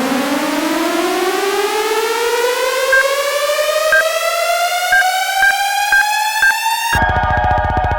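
Electronic music: a synthesized tone glides slowly and steadily upward in pitch, while short high beeps start about three seconds in and come closer together. Near the end it cuts suddenly to a dense, rapidly pulsing synth chord.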